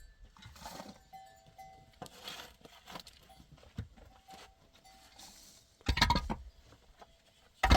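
Livestock bells ringing off and on in short, clear tones, with two loud, brief sounds about six seconds in and near the end.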